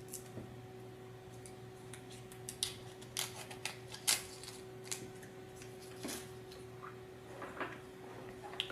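Small plastic robot-kit parts being handled: scattered light clicks, taps and short scrapes at irregular times, over a faint steady electrical hum.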